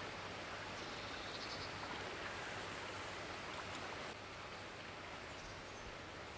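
Steady outdoor background hiss with no speech, slightly quieter from about four seconds in.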